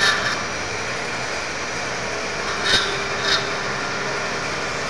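Machine-shop floor noise: a steady mix of running machinery with a faint steady hum. Three short hissing bursts break it, one right at the start and two close together a little past halfway.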